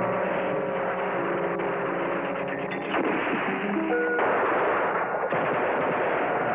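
Rapid, continuous small-arms gunfire, heaviest about four seconds in, over background music with held notes in the first half.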